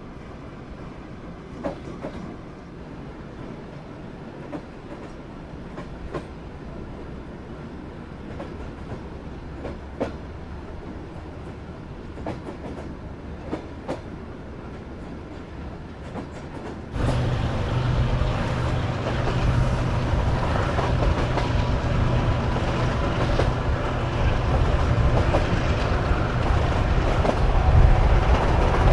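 Soviet-built sleeper train carriage running on the rails: a steady rumble with scattered clicks of the wheels over rail joints. About seventeen seconds in, the sound suddenly gets much louder, with a low steady hum and, for a few seconds, a faint very high whine.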